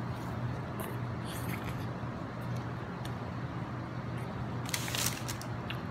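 Close-up chewing of a mouthful of meatball marinara sub, with a cluster of crisp wet mouth clicks a little before five seconds in, over a steady low hum.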